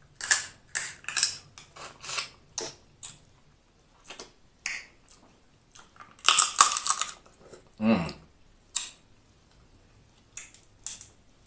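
Snow crab leg shells being cracked and picked apart by hand, with close-up eating and sucking sounds, heard as a string of short, crisp cracks and clicks. A denser run of crackling comes about six seconds in, and a brief low vocal sound falling in pitch follows about two seconds later.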